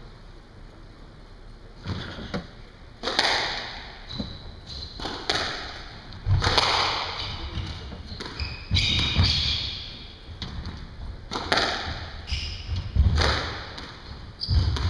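Squash rally: the ball cracking off racquets and the court walls, a sharp hit every second or so starting about two seconds in, each echoing briefly in the enclosed court.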